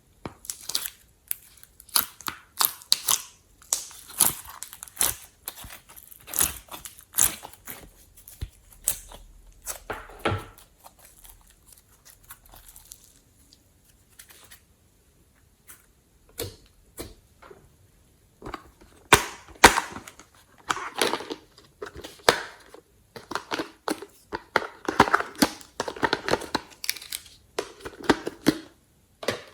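Glossy slime being squished and pressed by hand, giving irregular sticky clicks and crackling pops, with a short pause about halfway through.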